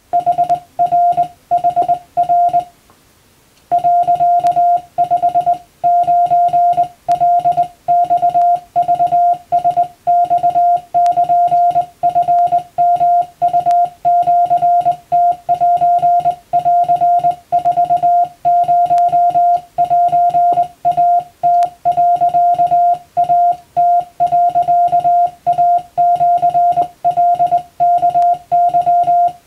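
Morse code (CW) keyed by hand on a telegraph key and heard as a single steady mid-pitched beep switched on and off in dots and dashes: Japanese wabun telegram practice text. The sending stops for about a second near three seconds in, then runs on at an even pace.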